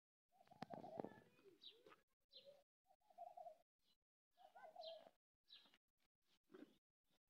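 Faint cooing of a dove, three short calls, mixed with faint rustling and crunching as the ox pulls at and chews dry straw.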